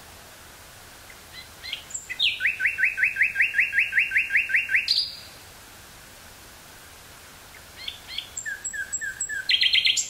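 Common nightingale singing two phrases, each opening with a few soft, scattered notes and breaking into a fast run of loud repeated notes; the first run lasts about three seconds, and the second starts just before the end after a pause of about three seconds. A faint steady tape hiss lies underneath.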